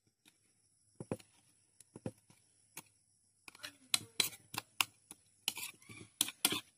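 Chili peppers being crushed by hand in a plastic bowl of dipping sauce: faint, sharp little clicks and crackles, a few scattered at first, then coming quicker from about halfway.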